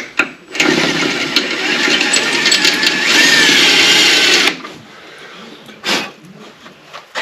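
Power drill with a cobalt bit running under load as it cuts into a broken 6 mm steel bolt, a steady whine for about four seconds that sags slightly in pitch before the drill stops. A single knock follows near the end.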